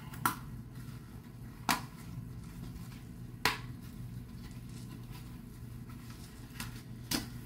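Packaging of a plant container disc being opened and handled: four sharp clicks of plastic and card spread unevenly across a few seconds, over a low steady hum.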